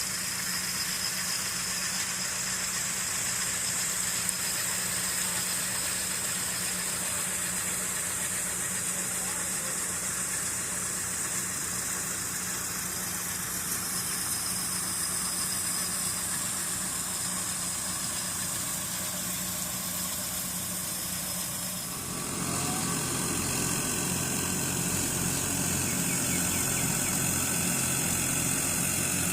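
Farm machinery engine running steadily, with a high hiss over it; about three quarters of the way through it gets louder and deeper, as under more load or revs.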